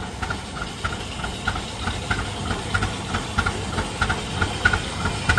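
Rumely OilPull S 30-60 tractor's two-cylinder kerosene engine running at a slow, even beat of about three exhaust pulses a second over a low rumble.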